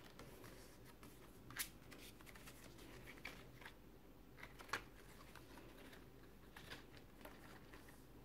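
Faint handling of a handmade card-and-paper scrapbook mini album: pages and inserts rustling and sliding as they are turned, with two sharper clicks, about a second and a half in and again about three seconds later.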